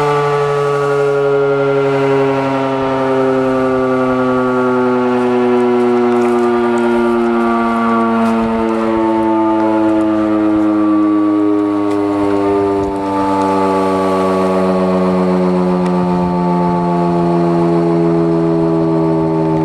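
Model 5 electromechanical air-raid siren sounding loudly during an attack-signal test, its multi-note wail sliding slowly and steadily lower in pitch.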